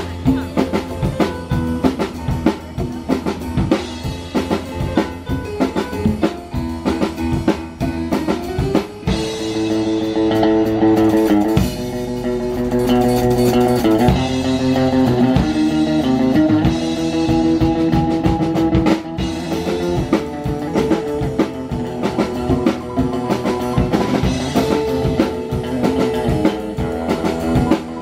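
Live band playing a song: drum kit, electric guitars and keyboard. The sound swells into louder held chords about nine seconds in.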